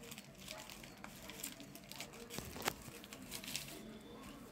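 Plastic courier mailer bag crinkling and rustling as hands pull it open, with one sharp click about two and a half seconds in.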